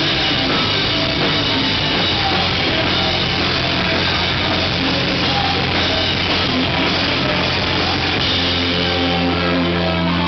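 Live rock band playing loud, with electric guitars, bass and a drum kit. Near the end the band holds a ringing chord.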